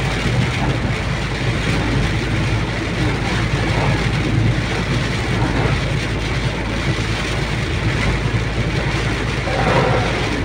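Steady car noise while driving on a highway in heavy rain: the engine running, tyres hissing on the wet road and rain on the car's body, with a heavy low rumble.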